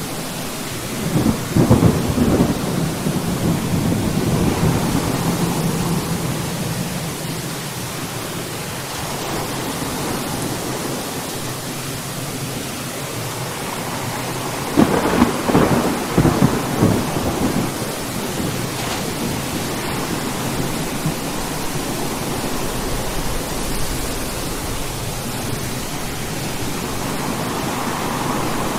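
Thunderstorm: steady rain throughout, with a crackling thunderclap about a second in that rumbles on for several seconds, and a second sharp, crackling clap about halfway through.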